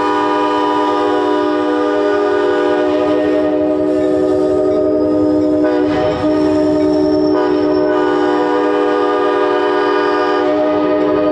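Nathan K5LA five-chime locomotive horn sounding a long, steady chord, held almost without a break apart from a brief dip about six seconds in.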